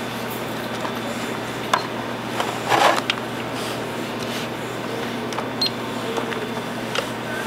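Steady indoor room hum with a few light clicks and a brief rustle about three seconds in, from handling at a service counter.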